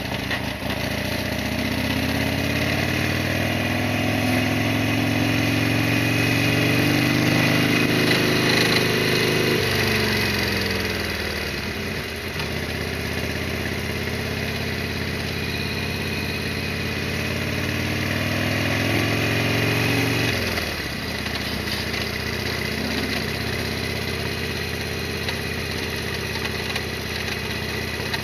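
Harley-Davidson Sportster XL1200R's air-cooled V-twin engine pulling the bike along. The revs climb for several seconds, fall about ten seconds in, climb again, fall about twenty seconds in, then run steadily.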